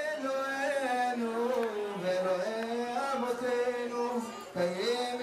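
A man chanting a Hebrew liturgical blessing into a handheld microphone in long, held, ornamented notes, with a short breath about four and a half seconds in.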